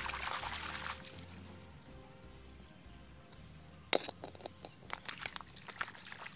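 Background music with a steady repeating bass, over a brief rustling hiss at the start. About four seconds in comes one sharp clink as a snail shell drops into a metal strainer, followed by a few smaller clicks and rustles of handling.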